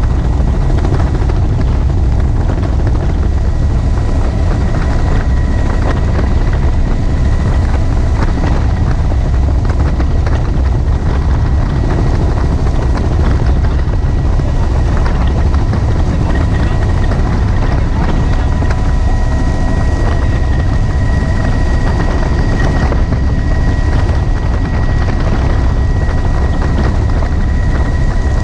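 Helicopter running steadily in flight, heard from inside the cabin with the doors off: a heavy, even low rumble of rotor and engine with a steady high whine on top.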